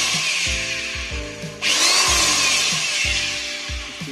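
Khadija SE-01 350 W corded electric drill running free with no bit in the chuck. It eases off about a second and a half in and is run straight back up, stopping at the very end.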